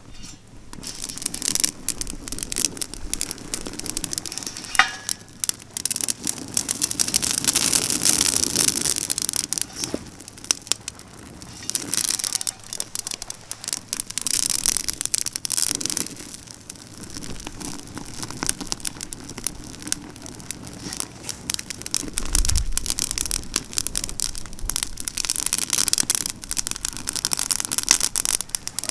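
Pruned pine branches burning in a vigorous, wind-fanned open fire, crackling and popping densely. The fire swells into louder, hissing spells every few seconds and then eases off again.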